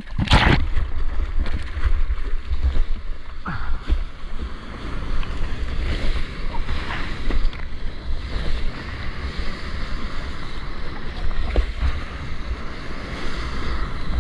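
Seawater splashing and sloshing around a surfboard as the surfer paddles through small whitewater, with a loud splash right at the start. Wind buffets the camera microphone as a steady low rumble.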